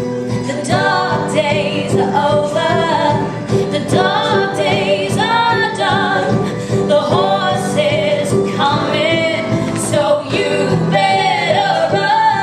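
Music: a song with a singing voice over a steady instrumental backing.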